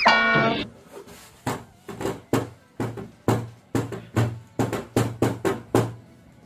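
A cardboard box being worked open by hand: a short squeal that falls in pitch at the start, then about a dozen sharp knocks or scrapes, roughly two a second, each with a dull thud of the box.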